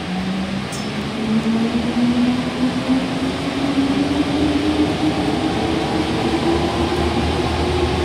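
Alstom NS-93 metro train heard from the front cab, its traction motors whining in a tone that rises steadily in pitch as the train accelerates, over a steady rumble of the running gear.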